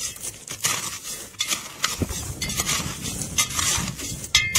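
Metal shovel scraping and digging into loose gravel and broken rock, with repeated scrapes and clinks of stones.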